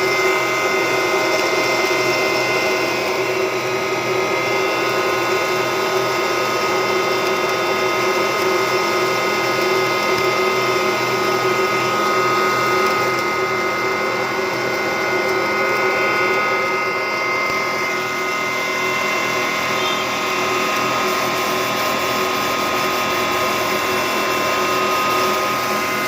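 FFC-45 disk mill running steadily, a continuous mechanical whir with several steady high tones over a dense hiss.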